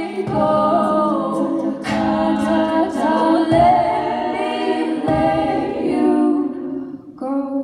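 All-female a cappella group singing live: a solo voice over sustained backing harmonies, with vocal-percussion bass thumps about every second and a half. The voices drop away briefly near the end, then come back softer.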